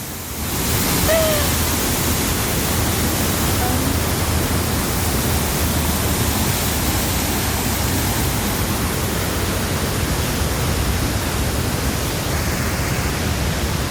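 Waterfall rushing with a steady, even roar of falling water that swells up in the first second and then holds.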